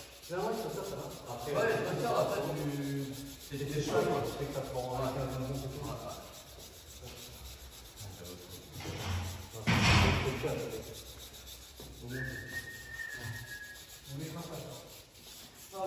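Indistinct men's voices in a large gym, then a short loud noise about ten seconds in and a brief steady high-pitched tone about two seconds after it.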